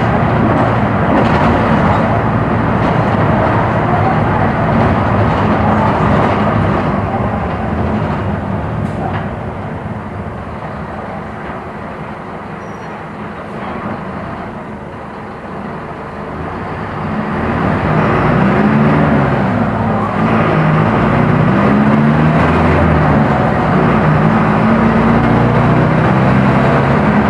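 Mercedes-Benz OF-1418 bus's diesel engine running under way. It eases off and quietens for several seconds in the middle, then the revs climb again, rising in pitch several times over in the last third.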